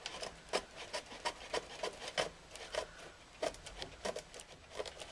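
Air suspension pipe being cut with a small hand saw in short strokes: a run of irregular scraping clicks, several a second.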